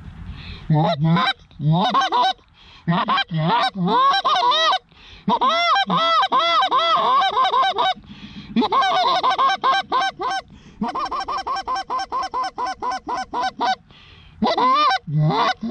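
Hand-blown Canada goose call sounding runs of loud honks and clucks in several groups with short pauses between, ending in an even run of clucks about four a second: calling to geese working the decoys.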